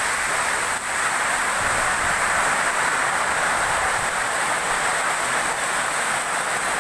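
Heavy rain pouring down hard, a dense steady hiss that does not let up.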